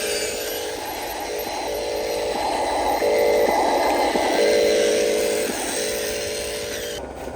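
Radio-controlled toy truck's small electric motor and gearbox whining under load, the pitch stepping up and down every second or so as the throttle changes. It drops off abruptly just before the end.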